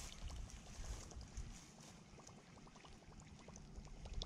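Fishing reel being cranked, a rapid run of faint ticks as a topwater lure is retrieved. A low rumble fills the first second and a half.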